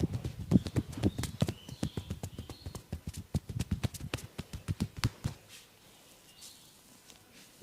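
Rapid rhythmic percussion strokes of a head massage, hands patting and tapping on the head in a quick clip-clop patter of about six strikes a second, stopping about five seconds in.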